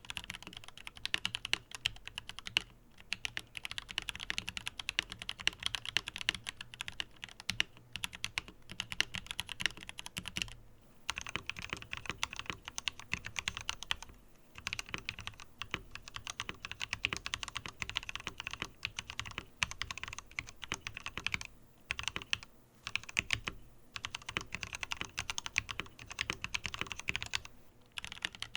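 Continuous fast typing on a Tom680 mechanical keyboard: a dense run of keystroke clacks, broken by a few short pauses.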